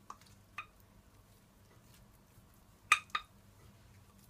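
Light clinks as a basting brush and sauce bowl knock against the metal oven rack while barbecue sauce is brushed onto whole fish. There are two faint taps near the start, then two louder ringing clinks close together about three seconds in.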